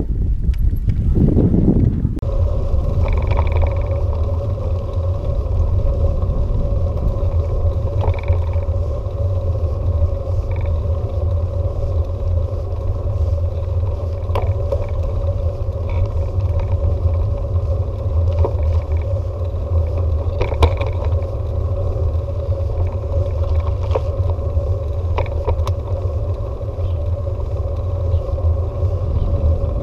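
A bicycle ride on a road: a steady low rumble of the tyres rolling and the ride moving, with a steady hum and scattered clicks and rattles. It is rougher and louder for the first two seconds, then settles.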